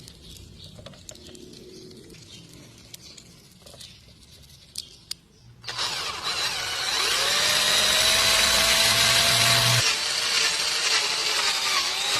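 A few light clicks, then about halfway through a power tool starts suddenly and runs loud with a high whine, its pitch shifting as it works.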